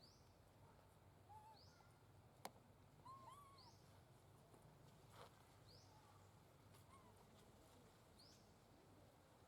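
Faint animal calls: a short rising high chirp repeats about every second and a half, with a few short arched calls lower in pitch among them. A single sharp click sounds about two and a half seconds in.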